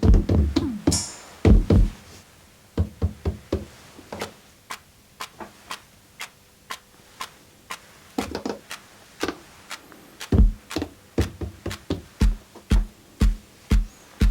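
Electronic drum-kit sounds from Maschine, from the Deep Matter expansion kit, played one hit at a time: a few loud hits at first, then sparse faint ticks. From about ten seconds in, the hits become a regular beat with a deep kick about twice a second.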